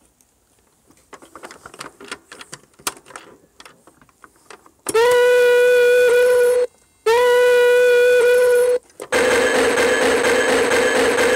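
Plastic clicks and knocks as a Chicco toy train is handled. About five seconds in, the toy's electronic sound module plays two long, steady horn-like tones. A buzzier, pulsing electronic tone follows near the end.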